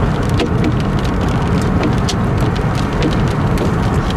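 Hailstones hitting a moving car in irregular sharp clicks, over the steady low rumble of the car's engine and tyres heard inside the cabin.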